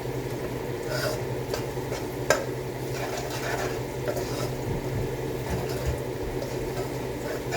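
A utensil stirring and scraping in a pan of tomato-paste sauce sizzling on the stove, with a sharp clink about two seconds in, over a steady low hum.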